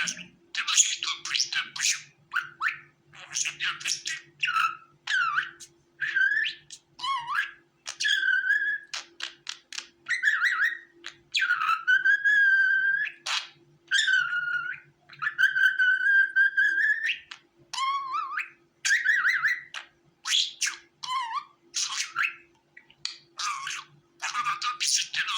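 Budgerigar chattering: a busy run of short chirps and squawks, with several longer, held whistling calls in the middle.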